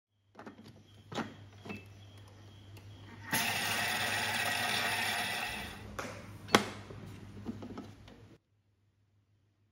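Thermomix lid set on and clicked into place, then the Thermomix motor and blades run steadily for about two and a half seconds, mixing at speed 4, and wind down. A sharp click follows as the lid is unlocked, with a few lighter knocks of the lid being handled.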